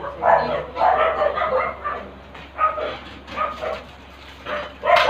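A dog barking over and over in short, repeated barks, with a quieter stretch in the middle.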